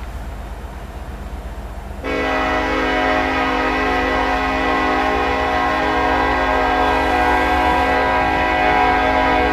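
Low rumble of a train, then about two seconds in a diesel locomotive's air horn starts suddenly and holds one long, steady blast.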